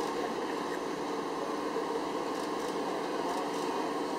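Steady engine hum with no sudden events.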